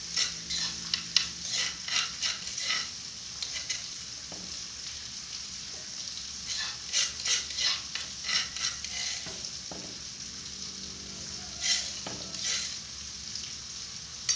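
Food sizzling in hot oil in a frying pan on a gas stove, with runs of quick spatula scrapes and clacks against the pan as it is stirred: in the first few seconds, again from about seven seconds in, and briefly near the end.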